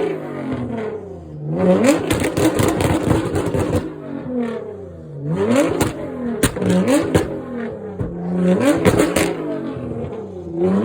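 Nissan GT-R R35's twin-turbo 3.8-litre V6 revved about four times, roughly every three seconds. Each time the revs fall back there is a rapid run of loud exhaust pops and crackles.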